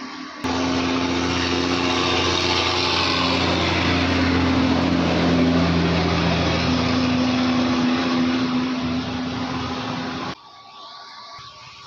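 Small 12 V DC cooling fan running, a loud steady whir of air with a low motor hum. It starts suddenly about half a second in and cuts off suddenly near the end.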